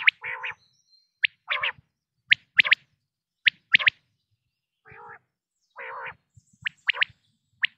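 Quail calling: short, sharp high notes in quick pairs and threes, repeated about once a second, mixed with longer, lower and rougher calls.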